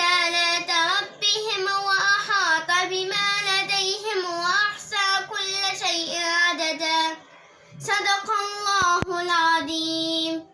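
A girl's voice chanting Quran recitation in melodic tajweed style, with long, ornamented notes that slide up and down. There is a short break about seven seconds in, then the chant resumes and stops abruptly near the end.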